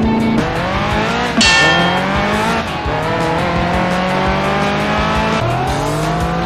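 Race car engine sound effect accelerating, its pitch climbing and dropping back several times as it shifts up through the gears. A short high tyre squeal comes about a second and a half in.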